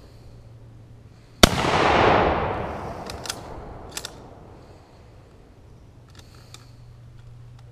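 A single shot from a Mosin-Nagant bolt-action rifle in 7.62×54R about a second and a half in. Its report rolls on as a long echo that swells and then fades over about two seconds. A few sharp clicks follow later.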